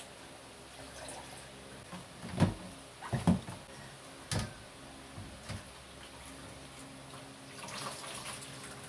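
Hands squeezing grated coconut in water in a stainless steel bowl to press out coconut milk: wet squelching and dribbling, strongest near the end. A few dull knocks of bowls being handled come between about two and four and a half seconds in, the loudest of them around three seconds.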